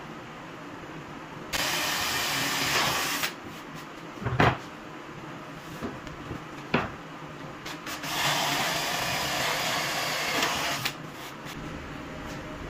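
Workshop noise: two stretches of loud hissing noise, one about two seconds long and one about three, with two sharp knocks between them as a plywood box is handled on the bench.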